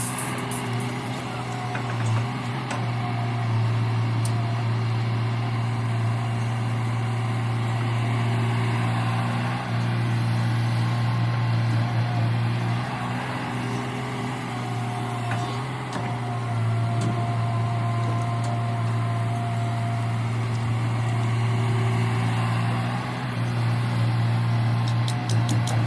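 Diesel engine of a heavy earthmoving machine running steadily, with a few brief dips in level along the way.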